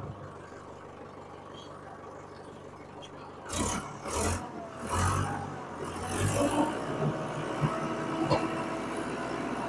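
Case International 585 tractor's diesel engine running just after starting, with a steady low idle, then several louder surges about a third of the way in as it is revved and set moving.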